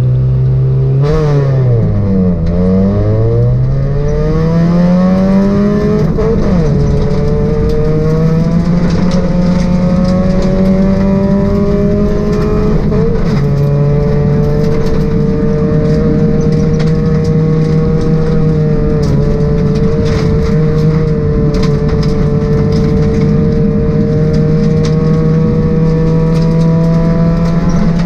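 Ford Focus rally car's 1.6-litre four-cylinder engine heard from inside the cabin, revving hard. The revs dip and climb again in the first few seconds, drop with gear changes at about six and thirteen seconds, then hold high and steady.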